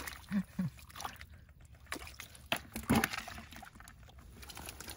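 Sloshing and splashing in shallow ditch water, with scattered small splashes and one louder splash about three seconds in.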